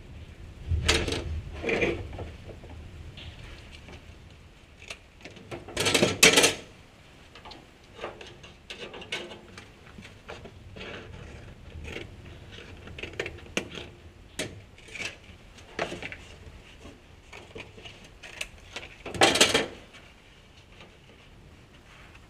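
Scissors snipping cardboard in short irregular cuts, with the cardboard template rustling and being handled. A few louder knocks and rattles come in between, the loudest around six seconds in.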